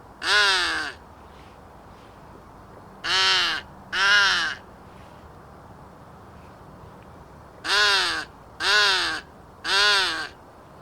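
Fearnot crow call blown by mouth, sounding six caws in groups of one, two and three, each caw rising and then falling in pitch.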